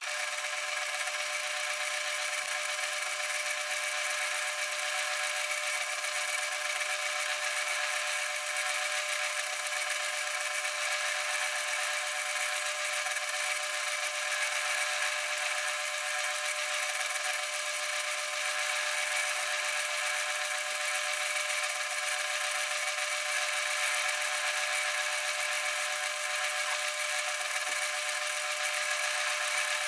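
South Bend lathe running steadily under power, taking a facing cut on a T-nut blank held sideways in the four-jaw chuck: an even mechanical whir with several steady high tones.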